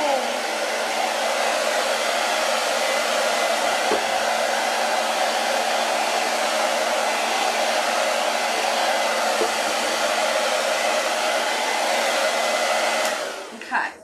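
Handheld hair dryer blowing steadily, then switched off near the end, its rush of air dying away.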